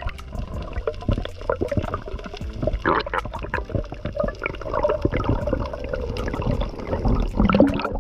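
Underwater sound picked up by a diver's action camera on a rocky reef: muffled water movement and a low rumble, with many small irregular clicks and crackles.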